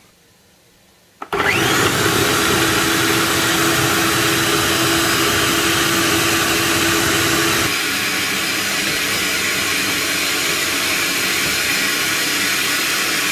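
Kenwood food processor switched on about a second in, its motor whining up to speed and then running steadily as the blade chops green chillies and garlic. About halfway through, the motor hum drops out and an even hiss carries on.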